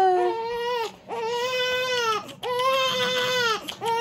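Newborn baby crying: a run of steady wails, each about a second long, with short gasps for breath between them.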